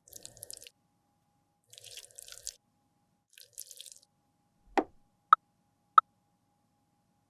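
Close-miked handling of makeup products and tools: three short crackly scraping bursts, then a knock and two sharp, ringing, drip-like clicks.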